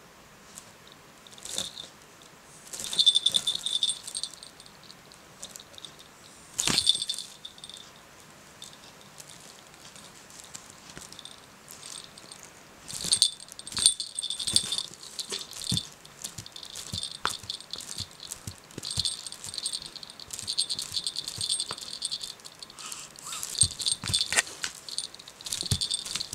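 Small jingle bell jingling in bursts as a cat paws and twists about in a wicker basket, with short knocks and rustles in between.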